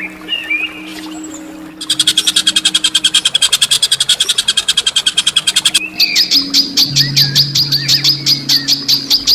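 Songbird calls for a masteran training recording: a few short chirps, then a fast, harsh trill of about a dozen notes a second. About six seconds in it gives way to a series of sharp, high, repeated notes. A low steady music drone runs underneath.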